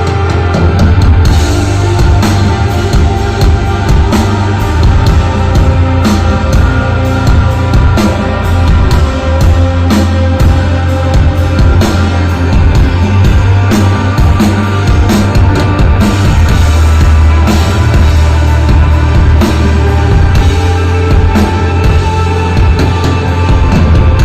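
A rock band playing loud live: electric guitar, bass and drum kit in a steady, heavy instrumental groove, with a strong bass and a regular drum beat.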